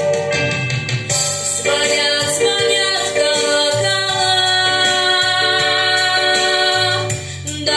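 Song with a backing track: a female voice holds one long wordless note from about two seconds in until near the end.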